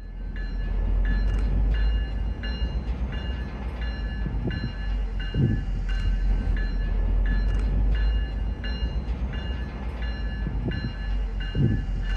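Diesel locomotive engine running with a heavy, steady low rumble as the locomotive moves slowly along the yard track, while a bell rings steadily at about one and a half strikes a second.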